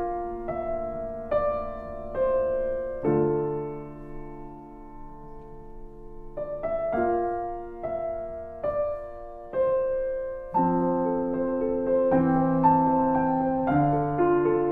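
Slow solo piano background music: single notes and chords struck about once a second and left to ring, with a lull in the middle and fuller chords near the end.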